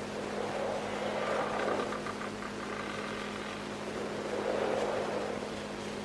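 Steady hiss and hum of an old film soundtrack, with two gentle swells in the noise.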